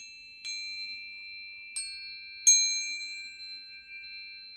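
Tuning forks struck three times within about two seconds, the last strike the loudest, each leaving several high, pure tones that ring on and overlap.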